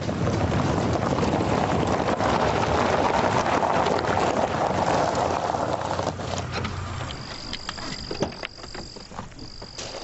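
A car driving past, a steady rush of road and engine noise that dies away about six seconds in. An insect's steady high trill then sets in, with scattered clicks and a car door being opened near the end.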